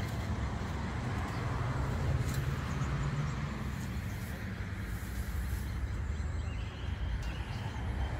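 A motor vehicle's engine running steadily, a low hum with a haze of outdoor noise over it.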